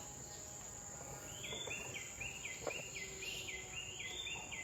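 Tropical forest ambience: a steady high-pitched insect drone, joined about a second in by a quick chirping call repeated about three times a second.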